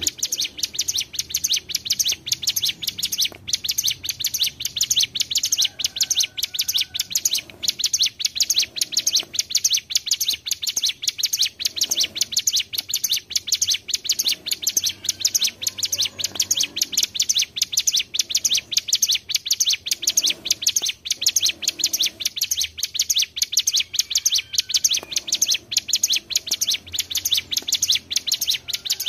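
Ciblek gunung, a mountain prinia, singing a long rolling song: a fast, unbroken stream of high chirping notes, with more than one bird layered together.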